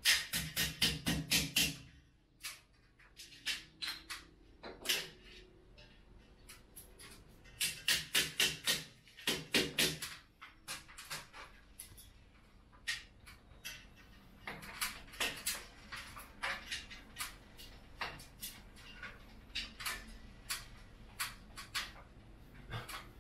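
A hammer strikes quickly at an air conditioner's metal wall-mounting plate, in a run of about eight blows at the start and again in two runs about a third of the way in. Scattered single clicks and knocks follow as the plate is worked on by hand.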